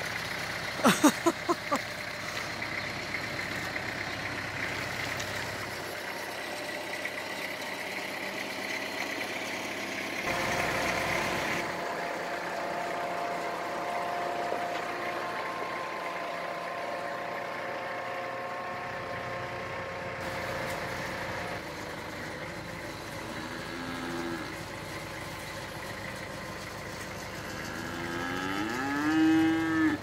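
Kubota M9000 diesel tractor engine running as it moves. A quick run of short, sharp sounds about a second in, and a cow mooing near the end.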